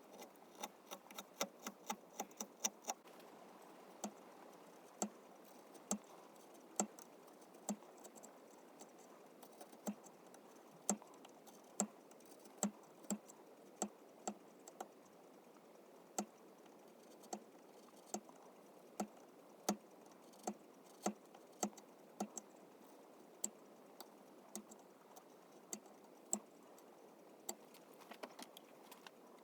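Carving tools working cherry wood: a quick run of sharp taps and clicks in the first few seconds, then single sharp clicks about once a second at an uneven pace.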